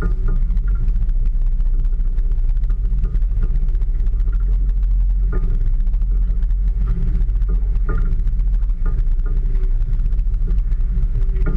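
Steady low rumble of a small fishing boat at sea, with brief short tones and light knocks now and then.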